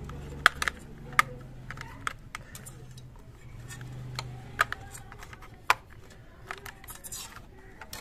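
A string of sharp plastic clicks and knocks as AA batteries are pressed into a toy RC car's battery compartment, its plastic cover is snapped shut and the car's plastic body is handled and turned over.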